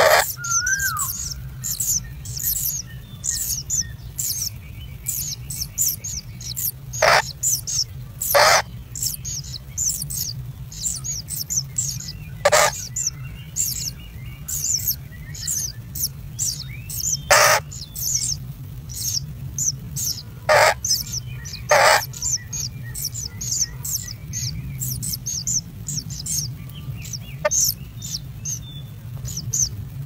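Kingfisher nestlings begging: a constant stream of rapid, high-pitched chirps, with louder sharp calls every few seconds, over a steady low hum.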